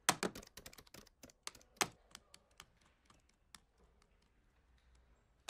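Calculator buttons being pressed: a quick flurry of small plastic clicks that thins out to a few scattered taps after about two and a half seconds.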